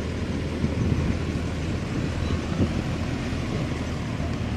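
Mahindra Yuvo 585 tractor's four-cylinder diesel engine running steadily under heavy load, a low continuous rumble as it drags a fully loaded trolley through deep mud.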